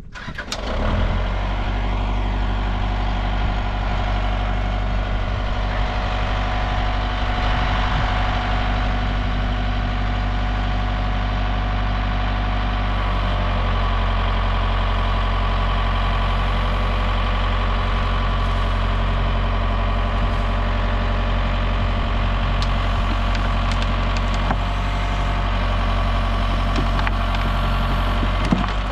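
Tractor engine running steadily while it powers a rear backhoe digging soil. Its note shifts slightly about halfway through.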